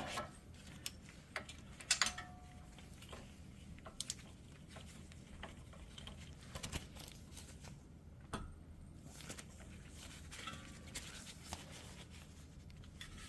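Socket wrench working the tight hub bearing bolts of a Jeep Wrangler front hub by hand: scattered faint clicks and metallic knocks, spaced irregularly a second or more apart.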